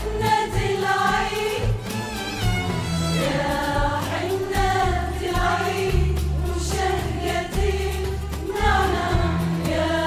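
Women's choir singing an Arabic song together, backed by an ensemble of violins and hand-played frame drums that keep a low, pulsing beat.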